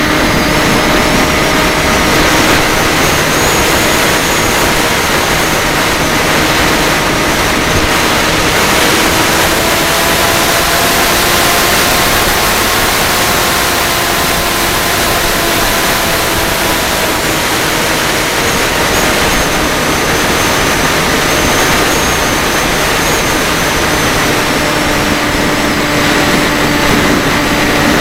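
Small FPV drone's electric motors and propellers whining steadily over a rush of air noise, the whine drifting gently up and down in pitch.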